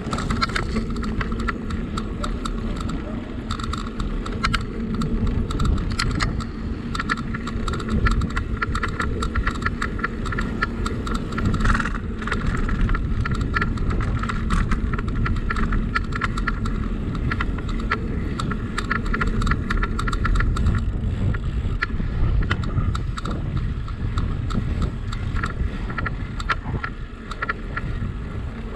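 Bicycle ride: a steady low rumble of tyres and moving air, with frequent small rattling clicks from the bike over the ground.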